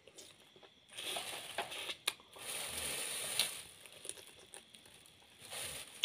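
Close-up mouth sounds of eating steamed sea crab: chewing and crunching on crab meat and shell, in two longer stretches about a second in and through the middle, with a couple of sharp cracks and more crunching near the end.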